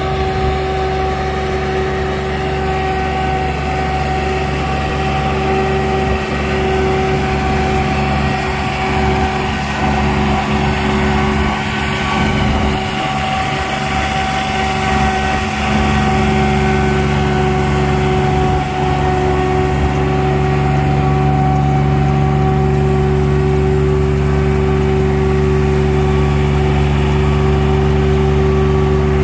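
Self-propelled orchard air-blast mist sprayer running with its rear blower fan spraying: a steady engine-and-fan drone holding several fixed pitches, with a short dip about twelve seconds in.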